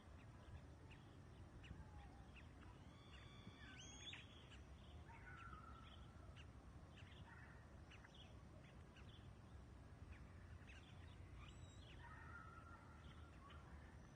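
Faint birdsong in the countryside: scattered chirps and short calls from several birds, the clearest a few seconds in and again near the end, over a low steady background rumble.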